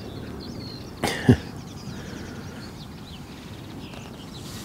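A man's single short cough about a second in, over a steady low outdoor background with faint bird chirps.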